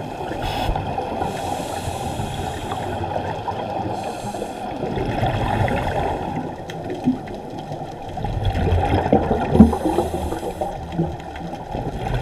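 Water heard through an underwater microphone: a dense, muffled rush with a few short hissing bursts over it.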